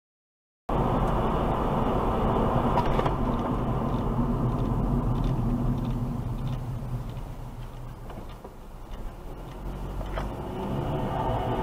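Road and engine noise inside a moving car, picked up by a dashcam: a steady rumble and hiss that starts abruptly about a second in, eases off around eight seconds, then builds again.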